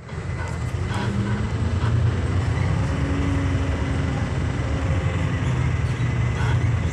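Steady low rumble of a city bus's engine and running gear, heard from inside the passenger cabin.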